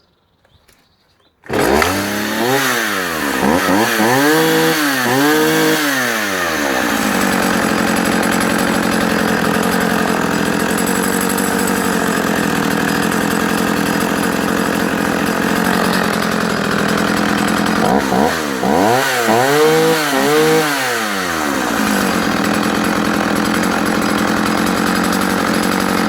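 Vintage Partner F55 55cc two-stroke chainsaw firing up warm on a restart. It revs up and down three times, settles into a steady run, then gets three more quick revs about two-thirds of the way in and runs steadily again.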